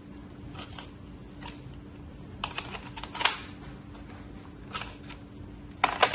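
Hard plastic clicks and clatter from handling a toy shell-ejecting soft-bullet pistol: a quick run of clicks about two and a half to three seconds in, a couple of faint ones near five seconds, and the loudest burst of clicks near the end as the magazine comes out of the grip.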